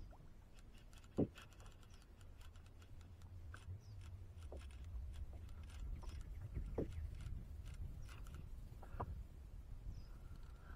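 Faint, irregular clicks and small knocks over a low, steady rumble of wind or water, with one sharper click about a second in.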